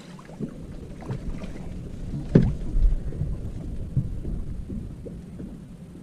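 Wind rumbling on the microphone and water slapping against a boat hull, with irregular small knocks and one louder thump about two and a half seconds in.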